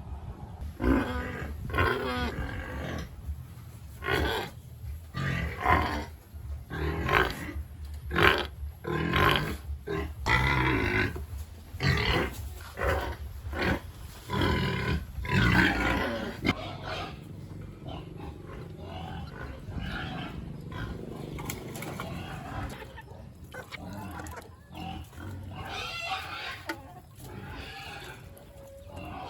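Pigs calling loudly, many harsh calls in quick succession for about the first sixteen seconds, then fewer and quieter calls.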